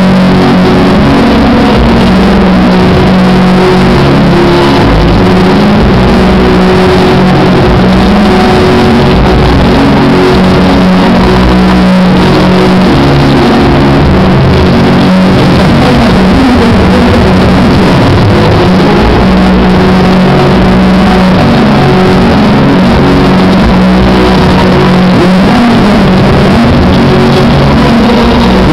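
Loud music played over a sound system, so loud that the recording is overdriven. Held bass and mid notes change every second or so.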